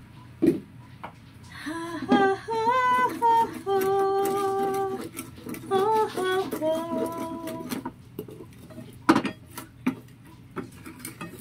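A woman hums or sings a short tune of a few held notes for about six seconds. A wooden spatula stirs a thick sauce in a steel pan and knocks sharply against it a few times; the loudest knock comes about nine seconds in.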